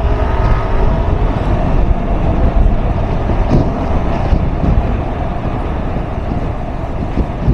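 Wind rushing over the microphone of a riding motorcycle, over the steady running of a Yamaha NMAX 155 scooter's single-cylinder engine at cruising speed.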